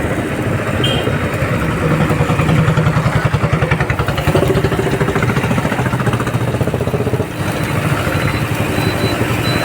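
An engine running steadily with a fast, even throb, a little louder between about two and five seconds in and dipping briefly near seven seconds.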